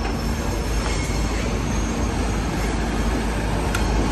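Tilt-tray tow truck running its winch and hydraulics to draw a car up the tilted tray: a steady mechanical drone with a faint high whine over it.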